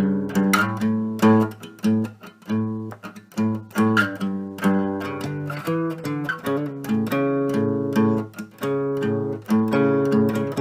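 Instrumental music on plucked strings: picked notes and strummed chords with low notes beneath, no singing.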